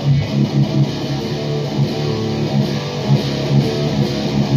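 Electric guitar played through a Pathos distortion pedal into a Marshall JCM800 head and Mesa cabinet: a loud high-gain riff with a repeating chugging low end.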